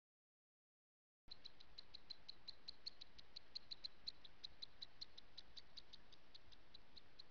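Silence, then, about a second in, a faint steady run of short high-pitched insect chirps, about six a second, over a low hiss.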